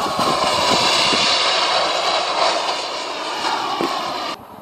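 BVM Ultra Bandit RC jet's JetCat P-180 turbine running at speed on a low pass: a loud jet rush with a whine that slowly falls in pitch. Near the end it cuts off abruptly to a much quieter sound.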